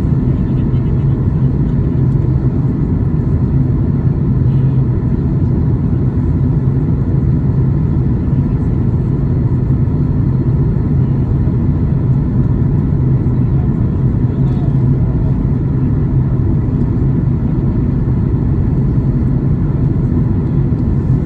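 Steady low cabin noise of a Boeing 737 MAX 8 airliner in flight: the rush of air and the CFM LEAP-1B engines heard inside the passenger cabin, even and unbroken.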